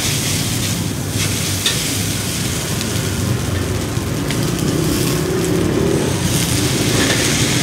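Oil sizzling steadily in a frying pan, with a couple of faint clicks.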